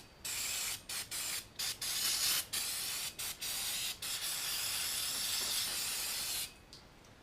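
Aerosol spray can hissing in a series of short squirts, then one long spray of about two and a half seconds that cuts off near the end.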